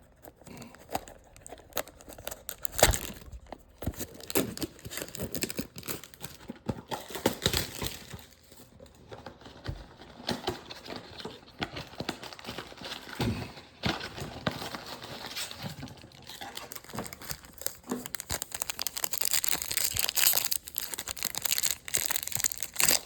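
Plastic wrapping crinkling and tearing as a trading-card box and its packs are unwrapped, with scattered knocks and taps from handling the cardboard. The crinkling grows denser and steadier near the end.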